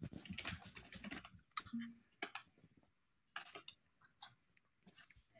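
Faint, scattered small clicks and rustles, irregular and with no steady sound beneath them.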